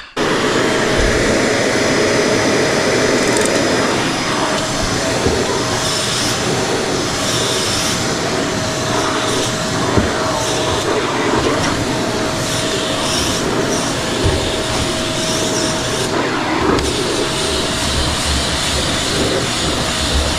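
Eureka Whirlwind NEN110A bagless canister vacuum switched on abruptly, then running steadily: a loud rush of airflow over a steady motor whine, with a few light knocks.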